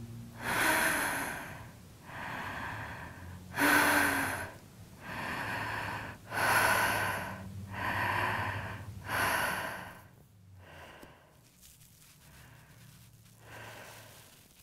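A person breathing heavily and audibly, with about eight breaths alternating louder and softer. The breaths become much fainter after about ten seconds. A steady low hum runs underneath.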